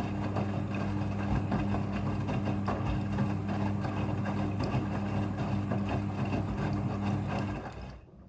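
Front-loading washing machine running its rinse cycle: a steady hum with water noise, which stops near the end.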